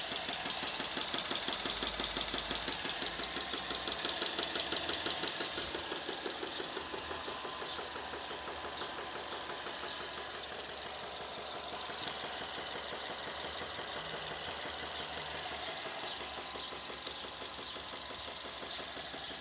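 Subaru EJ25 2.5-litre flat-four boxer engine running at warm idle with a knock. It is louder for about the first five seconds, then settles to a quieter steady run, with one sharp click near the end.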